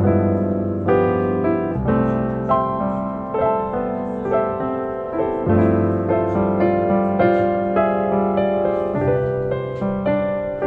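Background piano music with notes struck steadily over a low bass line.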